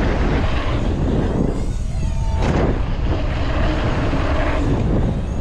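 Wind rushing over the microphone of a rider-mounted camera as a bicycle rolls fast over dirt jumps, with tyre noise on packed dirt. There is a single knock about halfway through.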